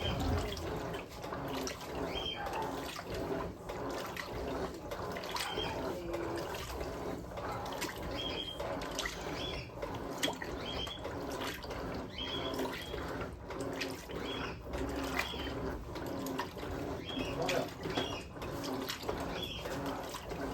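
Water sloshing and churning in a top-loading washing machine, an Electrolux LM08A with a dual-action agitator, as it agitates a load of wet towels. Short high chirps come and go throughout.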